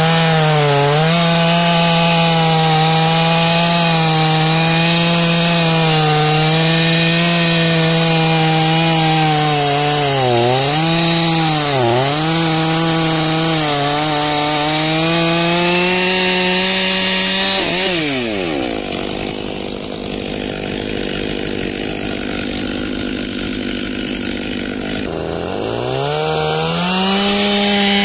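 Stihl MS 500i fuel-injected two-stroke chainsaw running at full throttle through a log, the engine note sagging briefly a few times as the chain loads up in the cut. About eighteen seconds in the throttle is released and the saw drops to idle, then it revs back up to full speed near the end.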